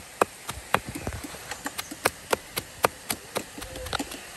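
A hand-held stone pounding garlic cloves in a plastic bag against a rock, crushing them: quick, sharp knocks, about four a second.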